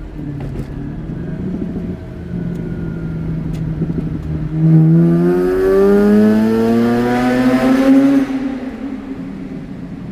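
Mazda RX-8's twin-rotor rotary engine running steadily, then from about halfway opened up in a tunnel, its note rising in pitch for three or four seconds before the throttle is lifted and it drops back to a steady drone.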